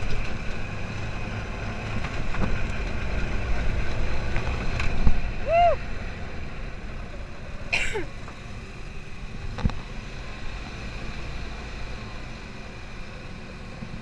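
Off-road buggy engine running with a steady low rumble as it bounces along a rough dirt track, with a few knocks from the chassis. Louder for a few seconds early on, and a short rising-and-falling squeal just past the middle.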